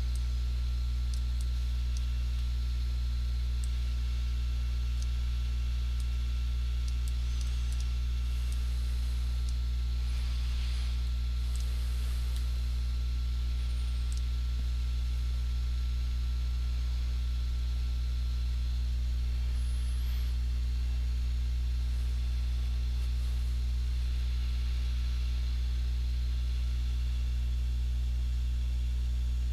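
Steady low electrical hum, a mains hum with its even overtones, holding unchanged throughout, with a faint hiss above it.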